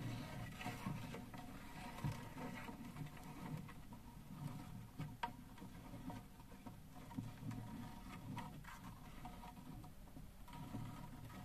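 Mud crab in shallow water in a plastic basin: faint, scattered taps and scrapes of its legs on the plastic, with a few sharper clicks, over a low background rumble.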